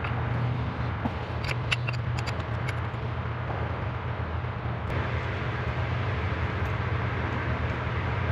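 Steady low hum and hiss, with a few light metallic clicks about two seconds in as a wrench and steel bracket are worked against the transmission nose-cone studs; the hiss grows louder about five seconds in.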